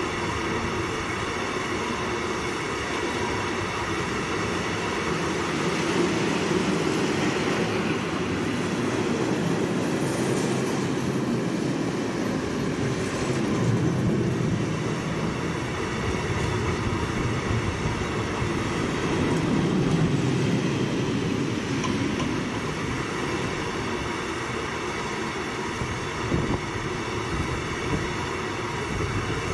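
Freight train of Smmnps/Smmps stanchion flat wagons rolling past at speed: steady clatter and rolling of steel wheels on the rails, swelling and easing a little as the wagons go by.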